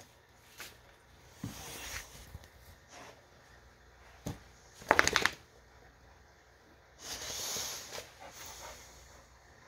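American Bully dogs moving about at close range: scattered soft scuffs and knocks, a quick run of sharp clicks about five seconds in, and a breathy snort around seven seconds in.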